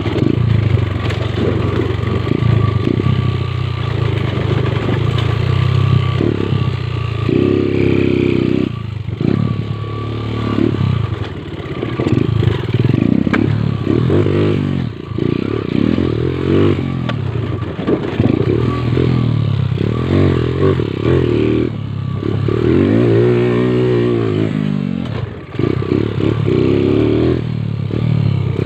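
Motorcycle engine revving up and down over and over, pitch rising and falling as it accelerates, with clattering along with it.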